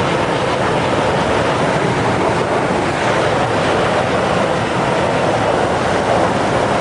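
Loud, steady rushing of a high-speed water jet blasting from a dam's bottom outlet pipe during an emergency discharge.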